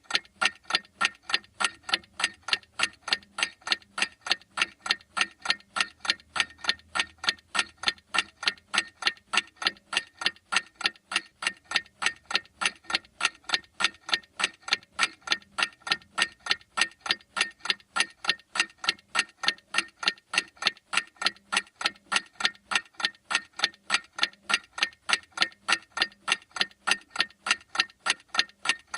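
Clock ticking in a steady, even rhythm of sharp ticks, several a second.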